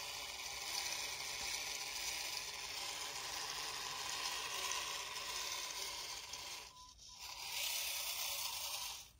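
Small electric motor and gearbox of a radio-controlled scale Opel Blitz 4x4 model truck running as it crawls over the ground, a steady high hiss that stops for a moment about seven seconds in, then starts again.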